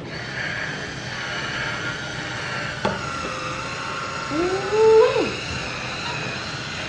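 Rechargeable electric wine opener's motor whirring steadily as it drives its corkscrew into the cork and draws it out of the bottle. There is a click about three seconds in, and a short squeaky tone that rises then drops at about four and a half seconds, the loudest moment.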